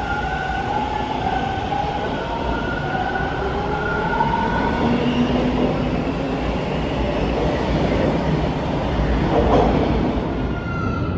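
Bombardier T1 subway train running through the station: steady wheel and rail noise with a pitched electric motor whine that rises slightly over the first few seconds.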